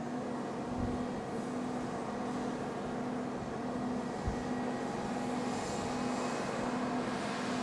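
Mobile crane working, its engine running under a low warning beep that repeats about one and a half times a second, with a single dull thud about four seconds in.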